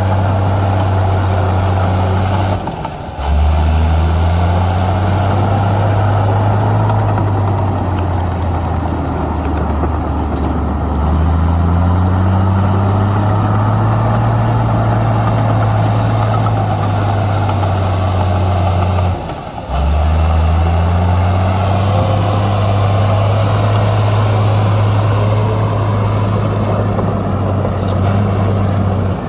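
Heavy construction machine's diesel engine running hard, a loud low drone that drops out briefly about three seconds in and again near nineteen seconds, each time coming back with the pitch climbing as it revs up, with another rise in pitch around the middle.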